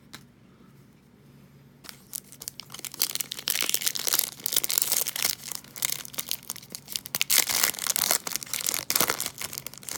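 Plastic wrapper of a baseball card pack being torn open and crinkled. It starts about two seconds in as a dense crackle that keeps up to the end.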